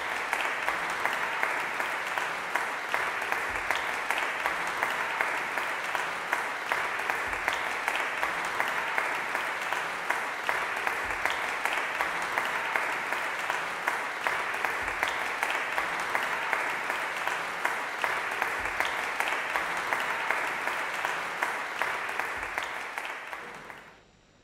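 Audience applauding, a steady even clapping that dies away near the end.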